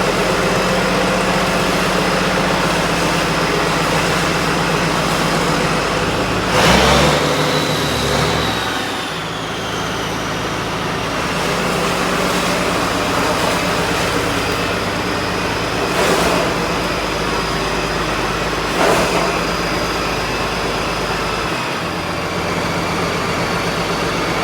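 A heavy engine running steadily, its note changing briefly about seven seconds in with a high falling whine, and two short knocks later on.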